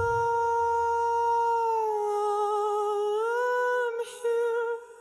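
An AI-generated voice humming one long note with no accompaniment. The note dips in pitch, rises back with vibrato, breaks briefly and fades out near the end.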